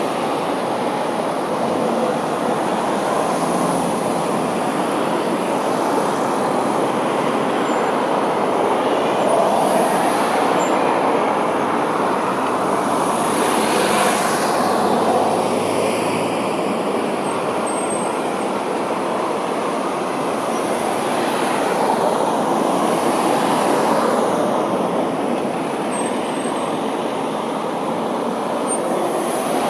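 Steady road traffic noise from a queue of cars, vans and a lorry in a street, rising in a few swells as vehicles pull away and pass.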